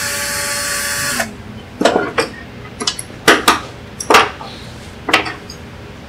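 Small cordless drill/driver whirring for a little over a second as it backs a screw out of the scroll saw's lower rocker linkage, stopping about a second in. This is followed by a scatter of sharp clicks and clunks as metal parts and tools are handled.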